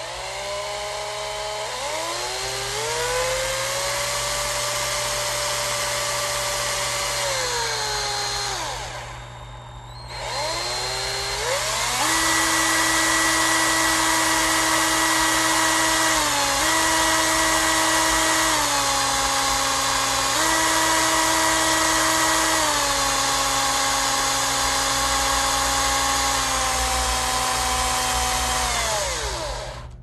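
A small electric motor spins up over about two seconds, runs with a steady whine, then winds down. It starts again and runs at a few steady speeds, stepping up and down several times, before winding down near the end.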